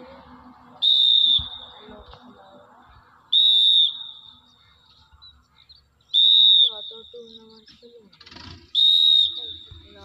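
A coach's whistle, four short even blasts about two and a half seconds apart, each a single high steady tone dipping slightly at its end. The blasts pace a group through sit-up repetitions.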